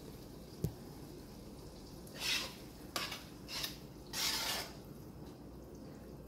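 A metal spoon scraping chicken curry in a frying pan four times in quick succession, after a single knock of a pan or pot about half a second in.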